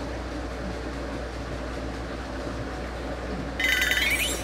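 Steady low background noise, then, near the end, a short bright ringing sound effect made of several high tones, lasting about half a second.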